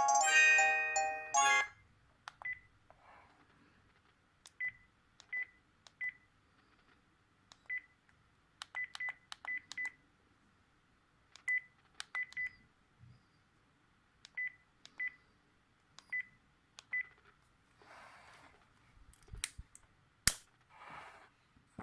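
A Sharp V703SH mobile phone's ringtone melody stops about a second and a half in. Then come single keypad presses, each a click with a short high key beep, at irregular intervals, some in quick runs of three or four. Near the end there are two rustling handling noises and two sharp clicks.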